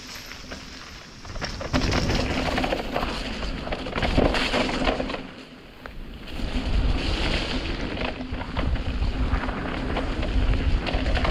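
Mountain bike rattling down a wet, muddy trail, with tyres churning through mud and water and a clatter of knocks from the bike, plus wind on the microphone. It gets much louder about a second and a half in, drops away briefly around the middle, then picks up again.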